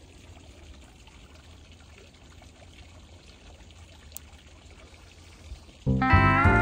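Water trickling into a lake, a faint, steady pouring sound. Near the end, loud guitar music suddenly starts.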